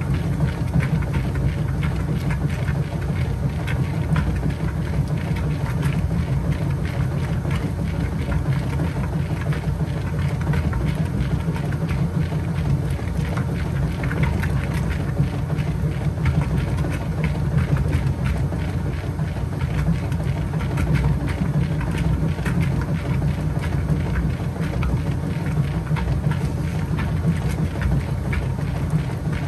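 Kenmore 80 Series washing machine agitating a load in its wash water: the motor and drive run steadily under the churning of the agitator.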